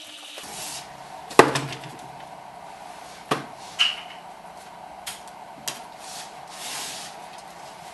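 A boxed whisky bottle is set down on a wooden desk with a sharp thump about a second and a half in. Lighter knocks and small clicks follow, and paper is handled near the end.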